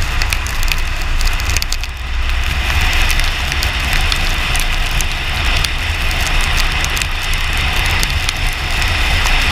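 Driving noise picked up by a camera mounted on the outside of a car on a wet road: a steady low wind rumble with the hiss of tyres on wet tarmac. Scattered ticks of water drops hitting the camera run through it.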